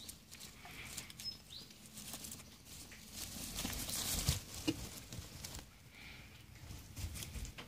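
Straw bedding rustling and crackling as a doe rabbit and her kits shift about in the nest, loudest about three to four and a half seconds in.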